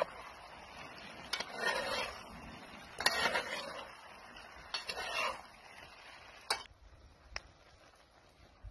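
Broad metal spatulas scraping and clinking against a cast iron skillet as noodles and shrimp are tossed and stirred. There are several scraping strokes with a few sharp clinks, and it goes quieter near the end.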